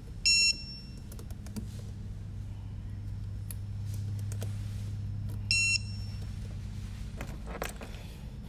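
Two short, high electronic beeps about five seconds apart, over a steady low hum. Light clicks come from a small drone frame and its screws being handled.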